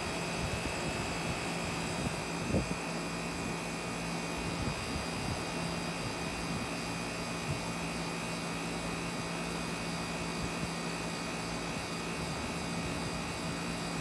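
Outdoor air-conditioner condenser unit running: a steady fan whoosh over a constant low hum.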